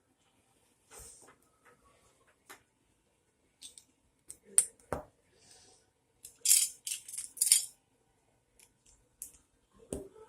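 Plastic Lego pieces clicking and clattering as they are picked out and fitted together: scattered sharp clicks, with a busier stretch of clatter about six to eight seconds in.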